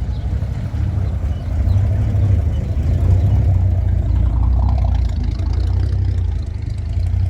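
Car engine running with a deep, steady rumble as a car rolls slowly in, growing louder about a second and a half in.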